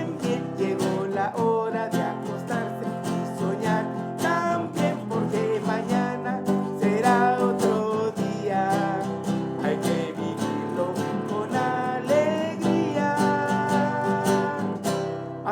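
Song with a strummed acoustic guitar and a voice singing the melody, in an even strumming rhythm.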